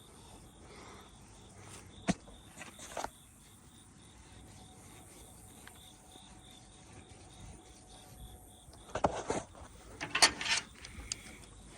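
Hydraulic cylinder being worked apart by hand as the rod is tugged out: a sharp knock about two seconds in with a little clatter after it, then a cluster of knocks and scrapes near the end, over a faint steady high-pitched background hum.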